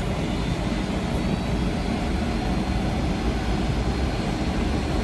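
Construction site noise: a steady rumble without distinct impacts.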